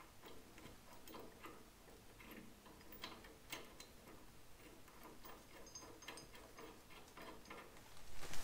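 Faint, light metallic clicking and ticking from hand-tool work on the mower's shaft fittings, about two to three clicks a second, with a louder clatter near the end.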